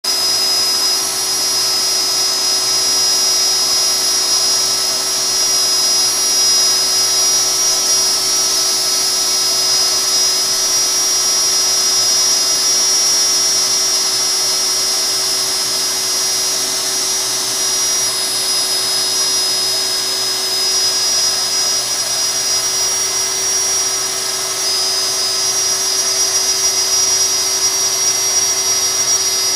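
DeWalt compact router on a LowRider CNC running steadily at high speed with a high-pitched whine as its bit cuts into a sheet.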